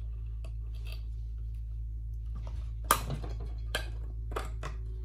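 A few sharp clicks and knocks as the chamber block of a Secoh EL-80-15 septic air pump is worked off by hand, the loudest about three seconds in, over a steady low hum.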